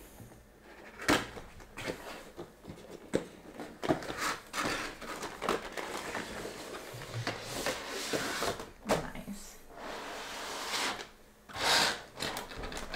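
A cardboard figure box being opened by hand and its clear plastic blister tray slid out: scattered taps, knocks and scraping rustles of cardboard and plastic, with a louder sliding rush near the end.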